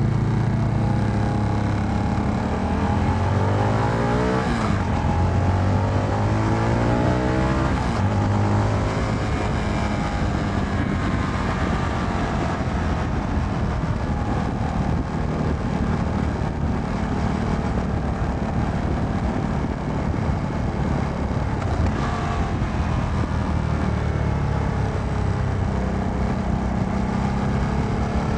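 Motorcycle engine accelerating through the gears: the pitch rises, drops at two upshifts in the first several seconds, then settles into steady cruising with wind and road noise.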